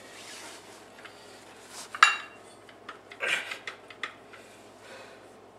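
Metal clanks and scrapes of a pry bar working the front pump loose from a Ford 4R100 transmission case: one sharp, ringing clank about two seconds in, then a cluster of scraping knocks a second later and a few lighter clicks.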